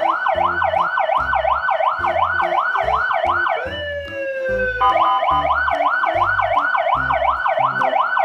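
Ambulance siren wailing fast, its pitch sweeping up and down nearly three times a second. About three and a half seconds in, the wail gives way to one long falling tone for about a second, then resumes. A steady bass beat of background music runs underneath.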